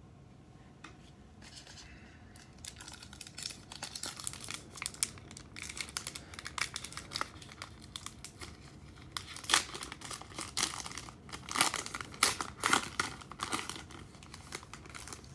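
A trading-card pack's foil wrapper crinkling and tearing as it is opened by hand. The crackling starts about a second and a half in, grows denser, and is loudest and sharpest in the later part before easing off.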